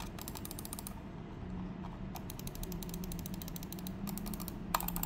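A4Tech OP-620D wired optical mouse clicking: four quick runs of small, rapid plastic clicks, the longest right at the start and another about two seconds in.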